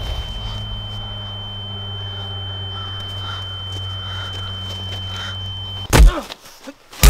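A steady high-pitched ringing tone over a low steady hum, a sound-design effect, cut off suddenly about six seconds in by a loud thump, with another sharp hit near the end.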